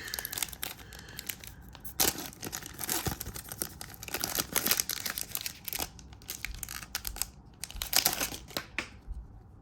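A trading-card pack wrapper being torn open and crinkled, a dense run of sharp crackles that thins out near the end.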